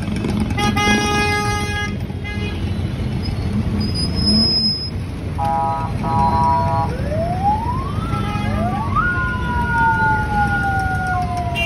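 Jammed city traffic: idling engines running steadily, with vehicle horns blaring. A long horn sounds about a second in and two short honks come around the middle. In the last few seconds a siren-like wail rises and then slowly falls in pitch.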